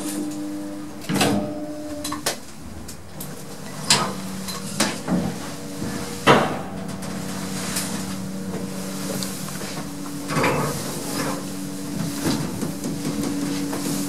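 KONE M series lift: the car doors slide shut, then the lift runs with a steady low motor hum, broken by several sharp clunks and knocks.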